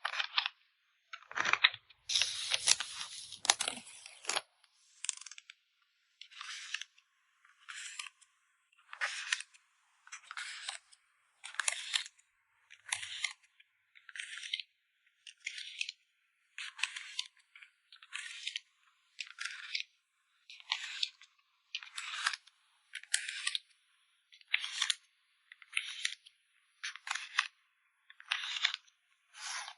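Plastic packaging and card sleeves rustling and crinkling as photocards are handled and packed, in short bursts about once a second, with a denser, louder stretch of crinkling near the start.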